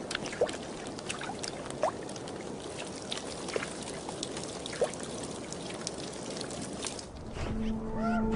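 Meltwater trickling and pouring, with small drips and brief plinks scattered through it. Near the end, a low sustained music drone fades in over it.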